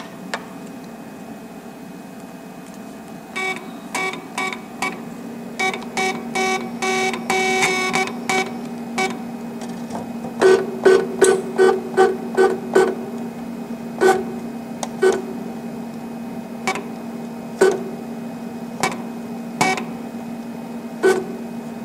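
Liyu SC series cutting plotter's stepper motors whining in about twenty short jogs of varying pitch, with one longer run about a third of the way through, as the arrow keys nudge the tool carriage and paper to line the LED pointer up with the pen mark. A steady low hum runs underneath.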